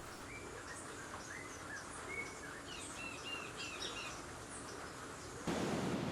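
Birds calling outdoors: many short chirps and brief rising whistles over a steady background hiss. About five and a half seconds in the background noise abruptly grows louder.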